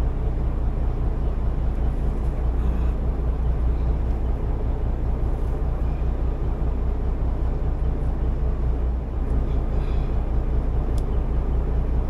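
Steady low rumble of an idling engine, with a few faint light clicks.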